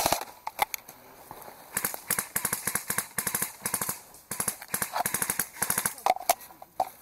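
Airsoft electric guns firing full-auto bursts: several trains of rapid clicking shots, each about a second long, then a few louder single cracks near the end.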